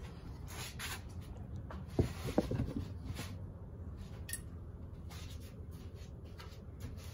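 Handling noise as the phone camera is moved and set in place: rubbing and scraping with a couple of light knocks about two seconds in. After that, low room tone with an occasional faint click.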